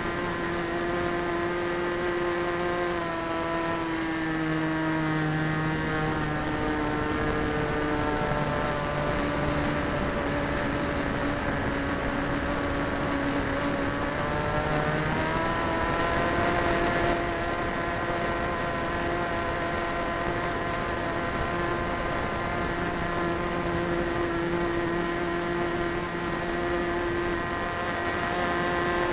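Super Tigre 90 two-stroke glow engine of an Ugly Stick RC plane running in flight, with a rushing haze of air noise. Its pitch sags for several seconds around the middle, then climbs back and holds steady.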